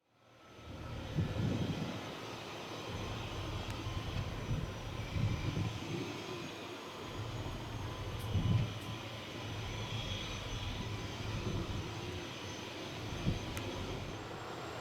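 Eurocopter AS332L1 Super Puma helicopter running: a steady high turbine whine over an uneven low rotor throb that swells now and then.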